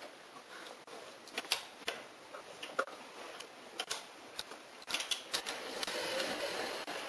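Irregular sharp clicks and taps of a palm socket wrench set being handled, metal pieces knocking together. A longer scraping noise comes near the end.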